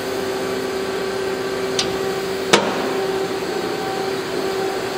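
Steady machine hum with a faint whine from a powered-up CNC Swiss lathe and its bar loader standing idle. A sharp click comes about two and a half seconds in.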